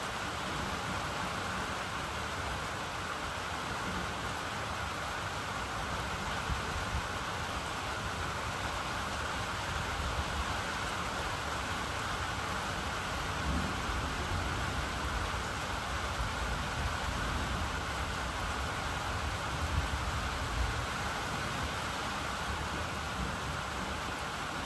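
Steady rain falling in a thunderstorm, with a low rumble underneath that comes and goes.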